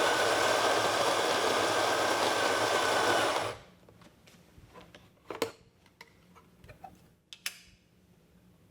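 Solis Scala coffee grinder running steadily to top up the grounds in an espresso portafilter, cutting off about three and a half seconds in. A few light clicks and knocks follow.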